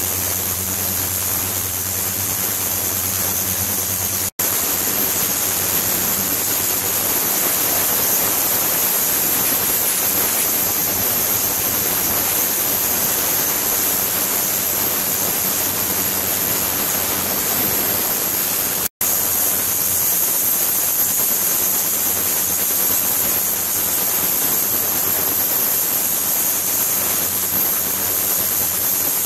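Steady rushing, water-like noise from an ultrasonic tank with liquid circulating through a nozzle, with a steady high-pitched tone over it. It cuts out for an instant twice.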